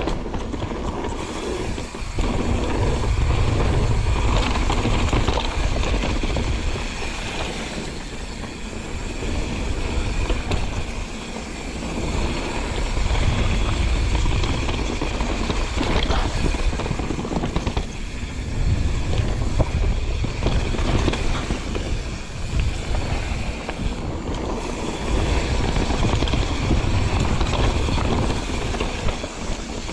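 Wind buffeting the microphone on a fast mountain-bike descent, over a steady rumble of tyres rolling across the trail surface. The rush swells and eases every few seconds, with scattered small clicks and knocks.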